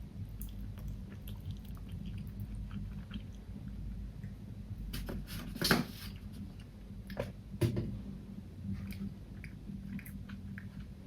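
A person chewing food close to the microphone, with small wet mouth clicks throughout and two louder bites, about five and a half and seven and a half seconds in.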